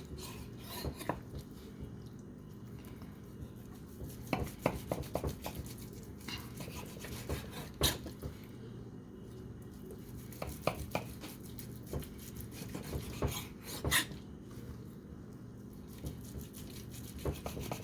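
Knife slicing through a cooked ribeye steak: rasping strokes of the blade with irregular sharp clicks and taps where it meets the surface underneath, over a steady low hum.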